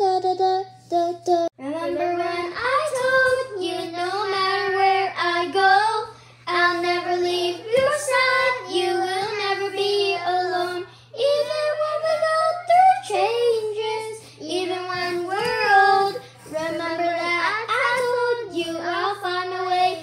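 A child singing a melody in a high voice with no clear words, phrase after phrase with short pauses for breath.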